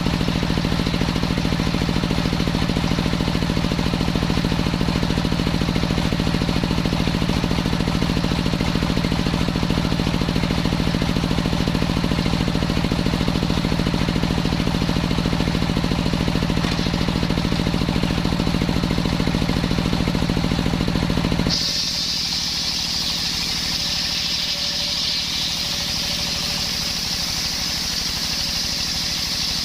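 Engine-driven circular saw running steadily with a strong low hum. About 21 seconds in the sound changes suddenly to a steady high whine, with the engine note much weaker.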